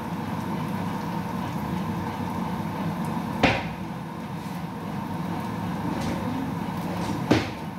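Garlic, onion and chilies frying in a pan with a steady sizzle. A utensil knocks sharply on the pan twice, about three and a half seconds in and near the end.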